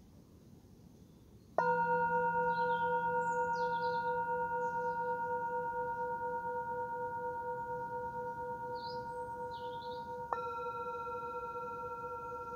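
Metal singing bowl struck with a mallet about one and a half seconds in, ringing with several steady tones that fade slowly; it is struck again near the end. Birds chirp faintly in the background.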